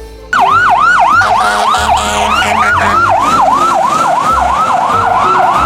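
Electronic fire-rescue siren in quick falling sweeps, about three a second. It starts abruptly just after the beginning and cuts off at the end.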